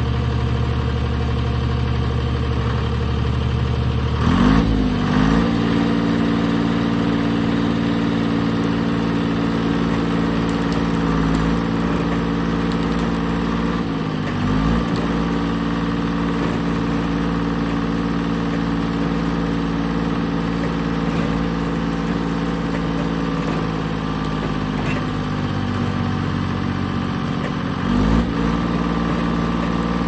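Timberjack log skidder's diesel engine running steadily while its winch drags logs in on the cable. The engine note shifts about four seconds in, wavers briefly around the middle, and changes again near the end.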